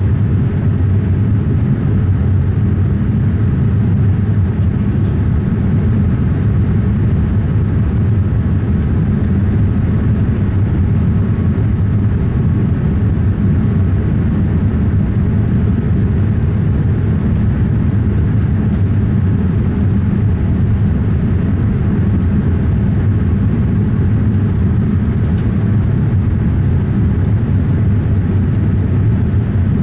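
Steady cabin noise inside a Boeing 787-9 Dreamliner in flight, from a window seat by the wing: an even, deep rush of airflow and engine hum that does not change.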